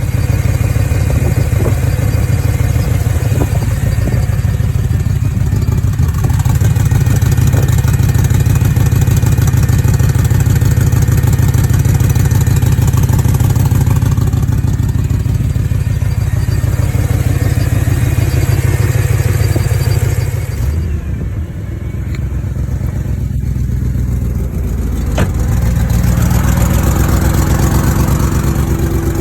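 BMW M3 S65 4.0-litre V8 idling roughly with an uneven, Subaru-like burble from an exhaust leak at a missing header-to-mid-pipe gasket, which the owner links to misfires on cylinders 5 to 8. The sound dips briefly about three-quarters of the way through, then carries on.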